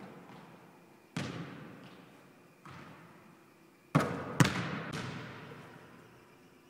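A basketball bouncing on a hardwood gym floor, each bounce a sharp impact that echoes through the large hall. There are a few spaced bounces, and the two loudest come close together about four seconds in.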